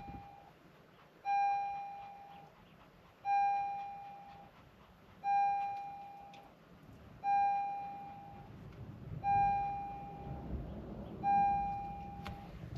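Electronic chime dinging about every two seconds, six times. Each ding is a single clear tone that starts sharply and fades over about a second.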